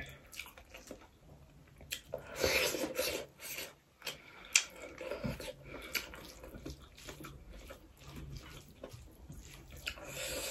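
Close-miked wet squelching and rubbing of rice and dal being mixed by hand on a plate, with scattered sharp wet clicks, the loudest about four and a half seconds in.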